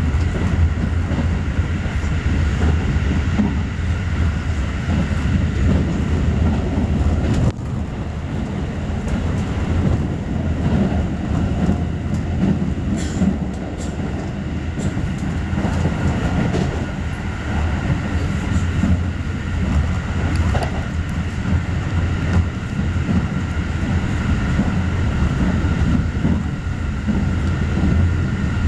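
Running noise inside a Keikyu commuter train car at speed: a steady rumble of wheels on rails, with a steady high whine over it and a short dip in loudness about seven seconds in.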